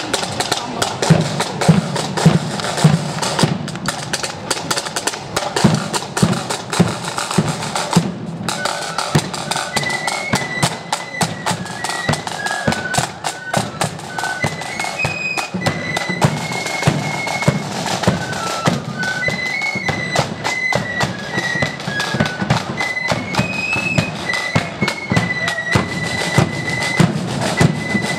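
Marching flute band: side drums and a bass drum beat a march rhythm, then after a brief break about eight seconds in the flutes come in with a melody over the drums.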